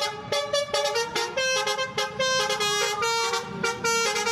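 Basuri "telolet" musical air horn playing a quick melody of short tooting notes that change pitch several times a second.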